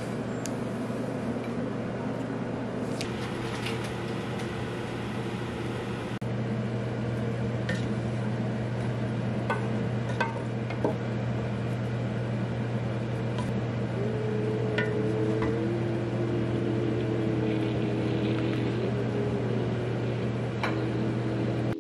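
A steady low electrical hum from a running appliance, with a few short light clicks and clinks scattered through it.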